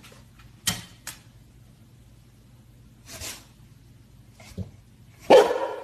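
Golden retriever giving a few short sniffs, then one loud bark near the end.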